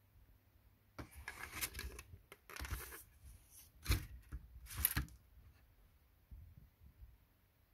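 Plastic clattering and rustling of a DVD player's disc loader mechanism being turned over by hand and put down on a table, with two sharper knocks about four and five seconds in.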